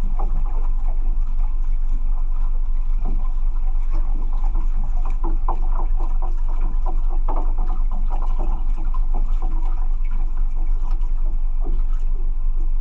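Water splashing and lapping around a small fishing boat over a steady low rumble, with irregular short splashes.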